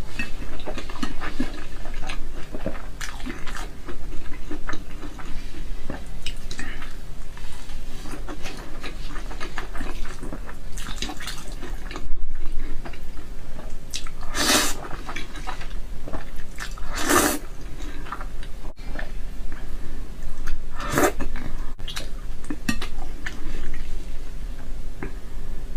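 Close-up eating sounds: wet chewing and mouth clicks, with chopsticks tapping the plate. There are three louder noodle slurps, two about halfway through in quick succession and one a few seconds later.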